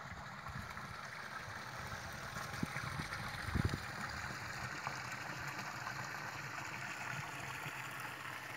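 Water trickling and gurgling as a small stream drains into a sinkhole, an even hiss of running water, with a low rumble underneath and a dull thump about three and a half seconds in.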